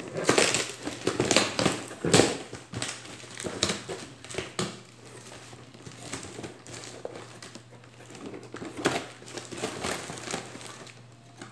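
Plastic packing material crinkling and rustling as it is pulled about by hand inside a cardboard box, in irregular crackly bursts. It is busiest in the first couple of seconds, thins out in the middle and picks up again about nine seconds in, over a faint steady low hum.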